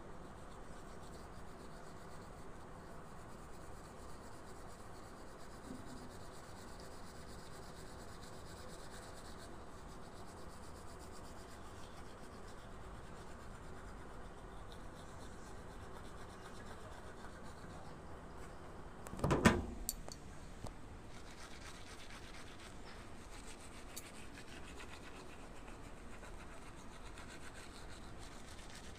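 Manual toothbrush scrubbing teeth with toothpaste, a faint steady brushing, with one short loud noise about two-thirds of the way through.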